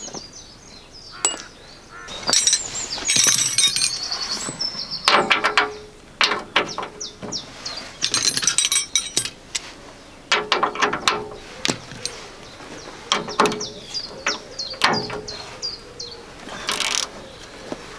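Socket ratchet clicking in short runs as bolts on the front bumper of a 1978 Land Rover Series 3 are worked loose.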